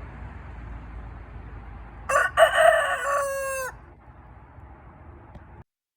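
A rooster crows once, a call of about a second and a half that drops in pitch at the end, over a steady faint background hiss.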